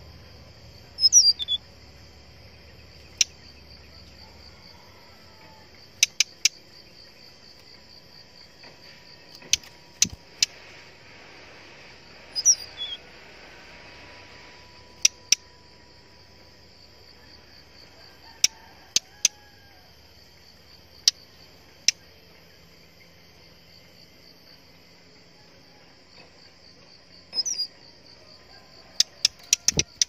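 Brown-chested jungle flycatcher calling: three short falling whistles, about a second in, near the middle and near the end, with sharp tick notes scattered singly and in pairs between them. A steady high-pitched insect trill runs underneath.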